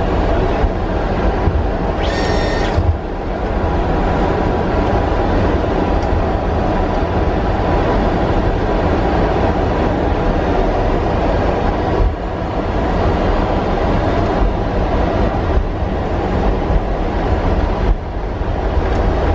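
Steady flight-deck noise of an Airbus A300-600 taxiing on the ground: a low rumble with a hiss over it. A brief high-pitched tone sounds about two seconds in.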